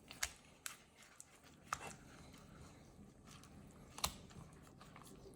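A few faint, scattered clicks and knocks, the loudest about four seconds in, as raw chicken pieces are handled and dipped into a bowl of wet buttermilk batter.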